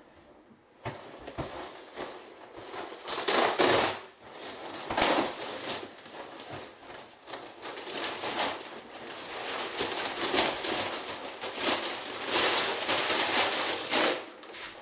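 Plastic wrapping of a roll of loft insulation crinkling and rustling in uneven surges as it is pulled open and stripped off the roll.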